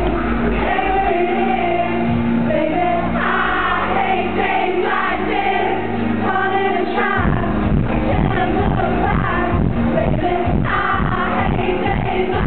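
Live band and male singer performing a dance-pop song, recorded from within the crowd at high volume. For the first half, sung lines sit over held low notes; about seven seconds in, a steady pounding kick-drum beat comes back in.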